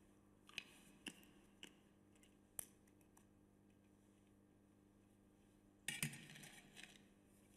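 Small clinks and taps of communion vessels being handled on the altar: four separate clicks in the first three seconds, then a short cluster of clatter about six seconds in, over faint room hum.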